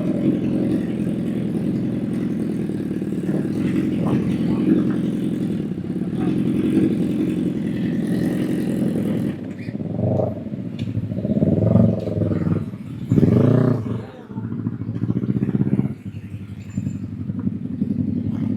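Honda CBR1000's inline-four engine running steadily under way, then revving up and dropping back three times in quick succession, and settling to a lower, quieter running sound.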